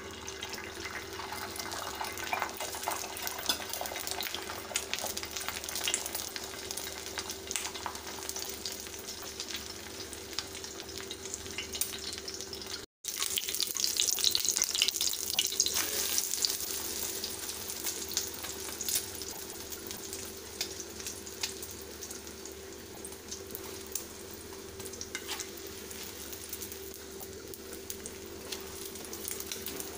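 Beaten egg sizzling and crackling as omelettes fry on a hot flat griddle (dosa kal). A brief break about halfway through, after which the sizzle is louder for a few seconds, then settles back to a steady crackle.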